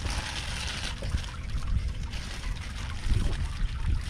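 Wet water weeds and debris rustling and crackling as hands sort through them on a fishing net, with a trickle of water and a steady low rumble.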